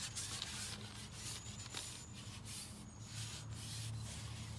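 Soft, uneven rubbing and rustling noise that swells and fades, over a faint steady low hum, with a few faint high bird chirps.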